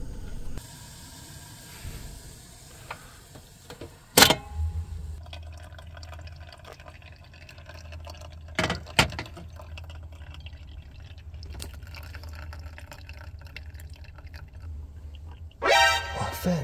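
A few sharp metal clicks as the small pot's folding handle is taken up, over a steady low hum. Near the end, hot water is poured into a pour-over coffee dripper, rising in pitch as the vessel fills.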